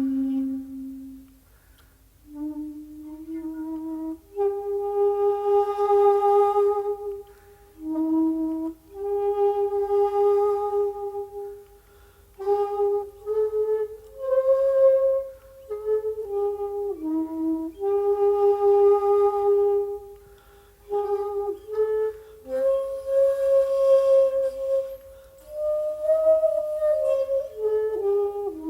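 Solo shakuhachi, the Japanese end-blown bamboo flute, playing slow phrases of long held notes separated by short breath pauses. Notes slide and bend in pitch, with audible breath in the tone.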